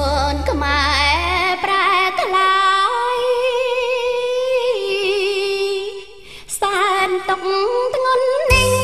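Khmer memorial song: a singer holding long notes with vibrato over a backing band. The low bass drops out after about a second and a half, and the full accompaniment returns near the end.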